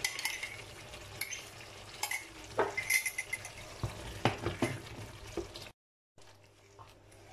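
Wooden spatula stirring and scraping in a wok as yogurt is mixed into a sizzling onion-tomato masala, with irregular scrapes and light knocks against the pan. Near the end the sound cuts out for a moment and comes back as a quieter simmer.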